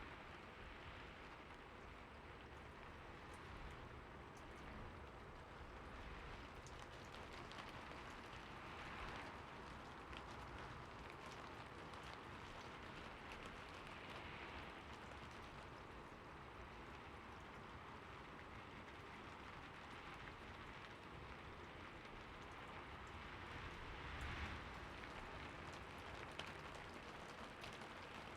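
Heavy rain falling steadily, swelling briefly a few times.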